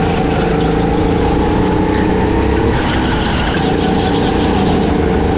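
Go-kart engine running hard, heard from on board, its pitch dipping briefly about halfway through and then climbing again.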